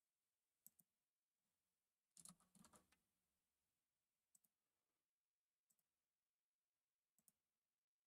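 Faint clicking at a computer over near silence: quick double clicks, and a short flurry of clicks about two seconds in.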